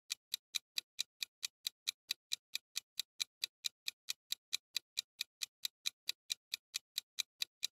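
Clock-ticking sound effect of a quiz countdown timer: crisp, even ticks, about four or five a second.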